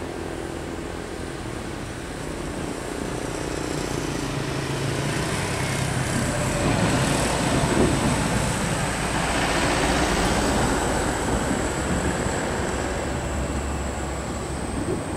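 Road traffic: vehicle noise swells up and passes about halfway through, then fades, over a steady low engine hum and a faint high steady whine.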